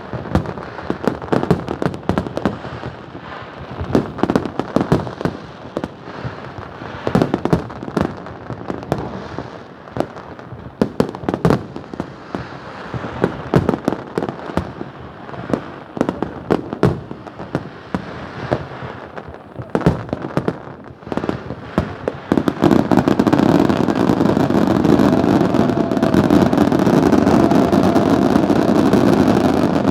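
New Year fireworks exploding in a rapid, irregular string of bangs and crackles. About three-quarters of the way through, a louder steady din with a faint held tone takes over and covers the bursts.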